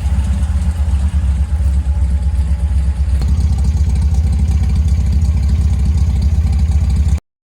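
Straight-six engine of a 1953 Chevrolet 3100 pickup running steadily through headers and dual glass-pack exhausts, a low pulsing exhaust note. It stops abruptly near the end.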